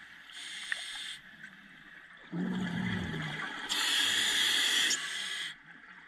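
A scuba diver breathing through a regulator: a hiss of inhaled air, then a low rush of exhaled bubbles a little past two seconds in, then a second, louder inhalation hiss.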